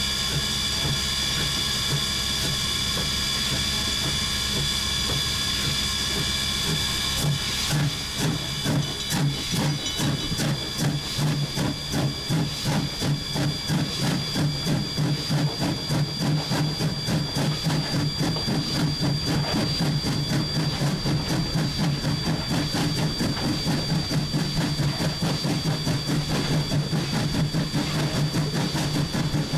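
1910 Swedish-built E2 steam locomotive heard from the footplate: a steady steam hiss with high, whistling tones that cuts off abruptly about seven seconds in. Then the exhaust beats take over, chuffing in a regular rhythm that gradually quickens as the engine works and gathers speed.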